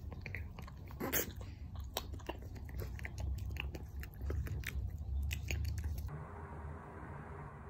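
Puppy licking and nibbling at a person's lips right at the microphone: a quick, irregular run of small wet smacks and clicks that stops suddenly about six seconds in, leaving a faint steady hiss.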